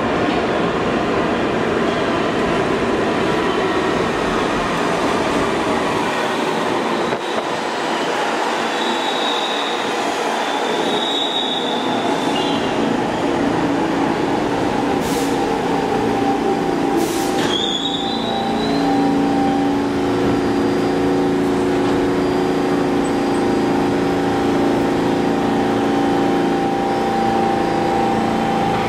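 New York City subway train running on the rails with a loud, steady rumble. The wheels squeal briefly twice, with a couple of sharp clicks near the middle, and a steady pitched hum of several tones sets in about two-thirds of the way through.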